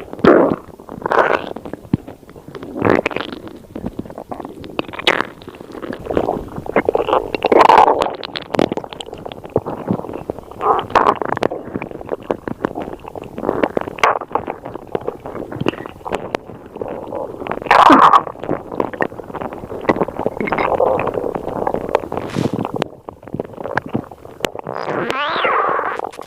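Stomach gurgling and rumbling in irregular bursts, with louder gurgles about eight and eighteen seconds in.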